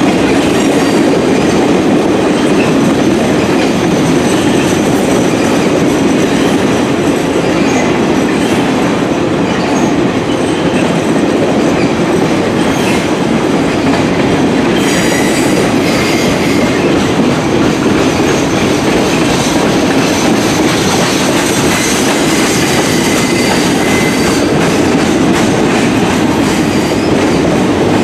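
RoadRailer train of highway trailers on rail bogies rolling steadily past, wheels clicking over rail joints, with faint metallic wheel squeals about halfway through.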